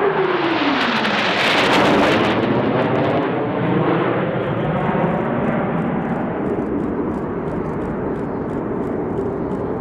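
Jet engines of the Blue Angels' F/A-18 Hornet formation passing: a whine that falls in pitch in the first second as the jets go by, a loud roar peaking about two seconds in, then a steady rumble that slowly fades as they climb away.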